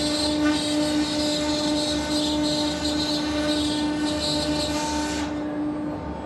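Double-head CNC wood router carving wooden door panels: a steady high whine over a rasping cutting noise. The rasping falls away about five seconds in, leaving the whine.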